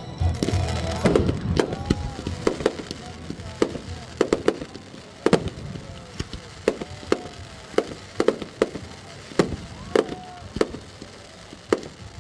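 Aerial fireworks display: a rapid, irregular string of sharp bangs from shells bursting, about two a second. The loudest and densest volley comes in the first two seconds, over a low rumble.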